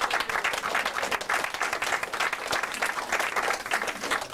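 A small group of people clapping, applause for a prize winner being called up.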